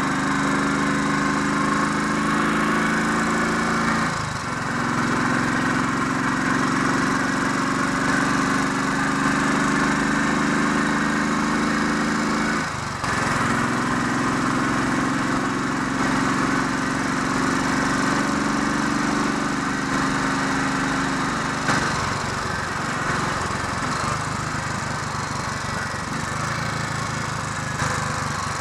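Royal Enfield 500 Electra X's single-cylinder engine running under way as it is ridden to warm up, with wind noise over the microphone. The engine note breaks briefly twice, about four and thirteen seconds in, as gears are changed, and drops away about twenty-two seconds in as the throttle is closed.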